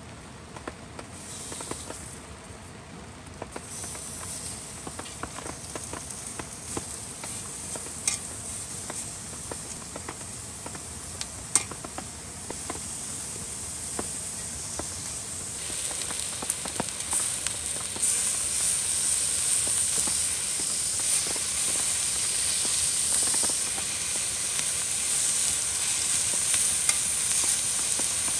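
Chicken neck meat sizzling on a hot griddle over a gas burner. The sizzle starts a few seconds in as the meat goes onto the pan and grows louder about halfway through. A couple of sharp clicks come in the first half.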